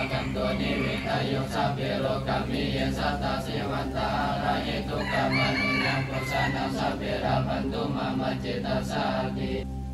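A rooster crowing, with held, arching calls near the start and again around five to six seconds in, over a dense background of other street sounds that drops away just before the end.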